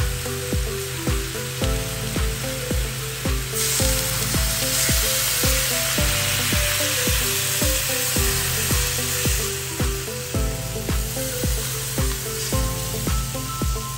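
Water poured into a hot stainless wok of browned pork, hissing and sizzling as it hits the pan, loudest from about four to nine and a half seconds in. Background music with a steady beat runs under it.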